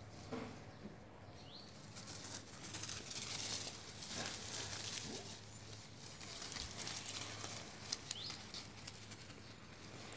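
Small dogs scampering and tussling on a lawn strewn with dry leaves: faint rustling and pattering that swells twice, over a steady low hum.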